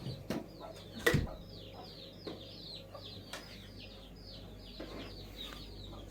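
Chicks peeping continuously in many short, high, falling peeps. A few knocks sound over them, the loudest a dull thump about a second in.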